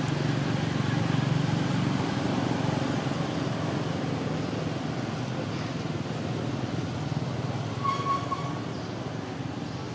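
Steady low motor-vehicle rumble that slowly fades, with a short high-pitched tone late on.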